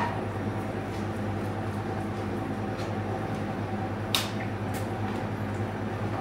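A motor's steady low hum in a small tiled room, with a single sharp click about four seconds in.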